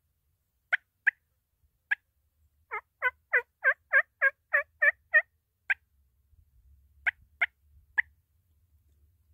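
Turkey clucks and yelps: three sharp single clucks, then a run of about nine yelps at roughly three a second, then four more clucks.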